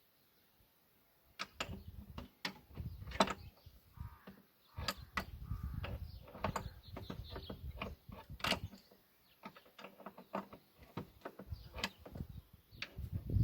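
Irregular metallic clicks and knocks of tools working on a hydraulic hose fitting as it is connected, with bursts of low rumbling handling noise.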